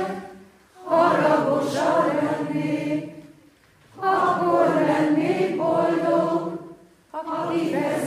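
Choir singing unaccompanied, in three phrases with short pauses between them.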